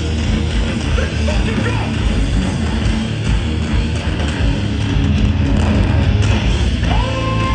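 Hardcore band playing live and loud, with distorted electric guitars and pounding drums over a heavy low rumble. Near the end a high note slides up and holds.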